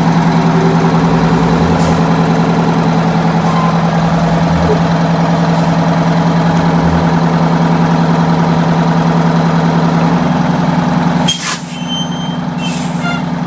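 Detroit Diesel 8V92TA two-stroke V8 in a Blue Bird Wanderlodge, idling steadily and heard close to its engine-bay grille. About eleven seconds in the sound drops sharply in level while the steady engine note carries on.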